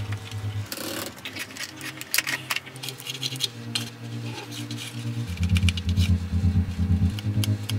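Hands handling and pressing cardboard onto a bamboo-skewer frame, with scattered light taps, clicks and rustles. A low hum runs underneath and grows louder about five seconds in.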